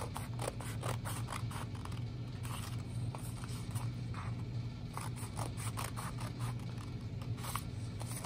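Scissors snipping through a sheet of paper in short runs of quick cuts with brief pauses between, as slits are cut one after another into a paper weaving loom.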